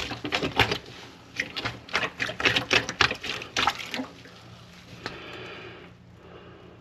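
Water splashing and sloshing in a stainless steel kitchen sink full of standing soapy water as a gloved hand works at the drain, which is clogged with grease. There are many quick splashes for about four seconds, then quieter trickling.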